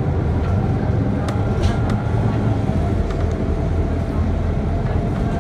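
MAN NL 283 A23 articulated city bus under way, heard from inside the passenger cabin: a steady low engine and road rumble, with a faint steady whine and a few light clicks and rattles.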